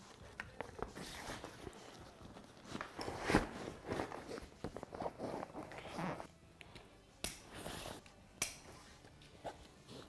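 Soft nylon fabric rustling and scraping as a waterproof dry bag is pushed back into a soft motorcycle saddlebag, with two sharp clicks in the second half.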